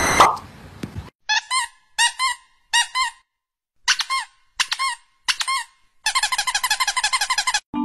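A brief burst of noise at the start, then short high-pitched squeaks, each bending in pitch, while a finger presses a piglet's snout. The squeaks come mostly in pairs about once a second, then turn into a fast run of about eight a second near the end.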